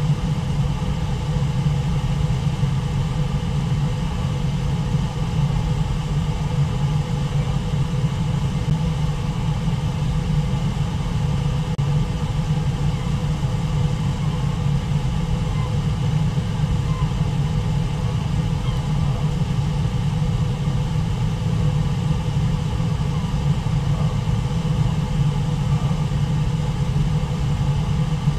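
Waterfall and river rapids making a steady, unbroken roar, heaviest in the low rumble with a hiss of white water above it.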